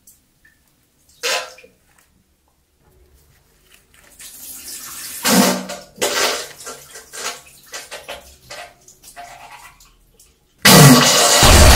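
Comic diarrhoea sound effect: wet spluttering and splashing into a toilet in a series of bursts from about four seconds in, the strongest early on and trailing off. Near the end, a sudden, loud explosion blast.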